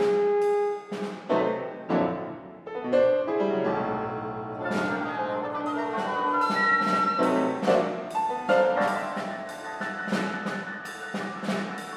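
Contemporary classical ensemble music: a held note breaks off about a second in, then comes an irregular string of sharp struck notes that ring and die away, with piano and percussion among them, over held pitched tones.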